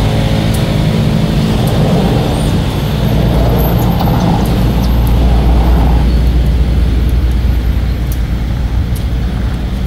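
A motor vehicle running close by: a steady engine hum gives way to a loud, low rumble that is strongest in the middle and eases off near the end.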